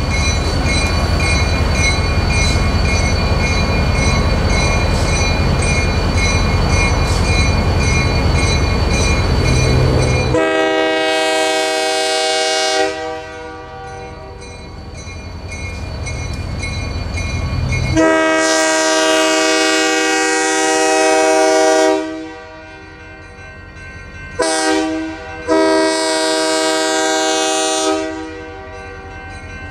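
Multi-chime locomotive air horn sounding the grade-crossing signal, long, long, short, long, as the train approaches the crossing. Before the horn, a steady low rumble for about the first ten seconds.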